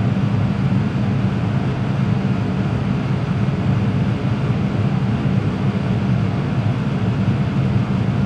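Vertical milling machine running with a steady, unchanging hum while the table is positioned over the cylinder head.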